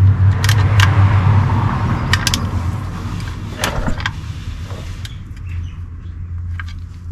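Several sharp metallic clinks and clanks over a steady low machine hum; the hum is strongest in the first couple of seconds and eases off later.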